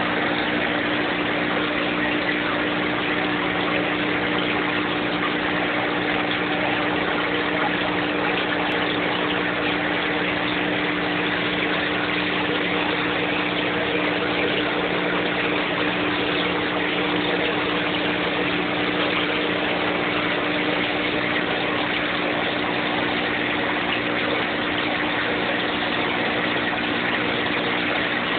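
Aquarium pump running: a steady hum with an even hiss over it, unchanging throughout.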